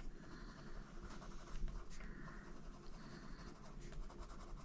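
White Caran d'Ache Luminance coloured pencil scratching faintly on paper in short repeated strokes, blending white into coloured pencil layers.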